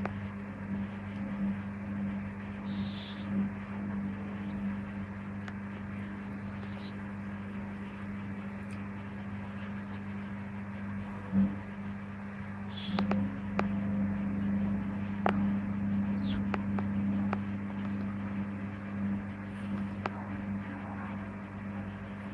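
Servis Gem M310 washing machine on its first spin, the motor and drum giving a steady hum with occasional light clicks; it grows a little louder about 13 seconds in.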